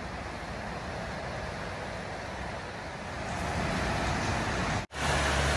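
A steady rushing noise with no clear source, growing louder about three seconds in. It cuts out for an instant near the end, and a low hum joins it afterwards.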